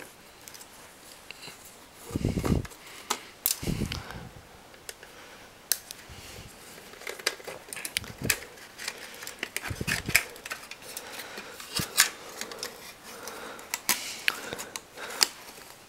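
Small screwdriver and hands working on a 3.5-inch floppy drive's metal chassis and circuit board: scattered light clicks and taps of metal and plastic, with a few dull thumps as the drive is handled.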